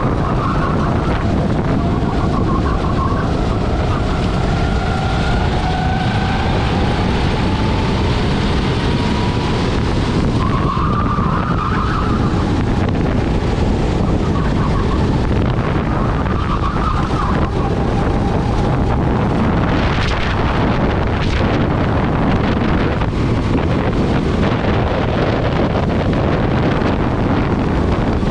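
Rental kart engine running hard at race pace, recorded onboard with heavy wind on the microphone. The engine note climbs on the straights and drops into the corners. Short wavering squeals from the tyres come a few times through the turns.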